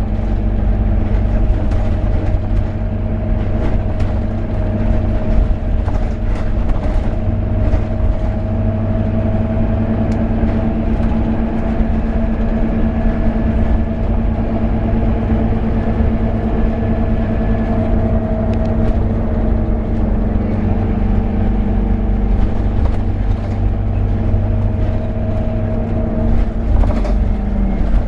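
Scania N270UD double-decker bus's diesel engine and ZF Ecomat automatic gearbox heard from inside the passenger saloon as the bus drives steadily along the road: a constant low drone with a whine that drifts slightly in pitch, and occasional light rattles.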